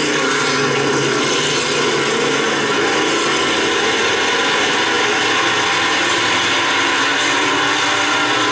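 A pack of stock cars racing at speed, many engines running together in one steady, dense drone with no let-up.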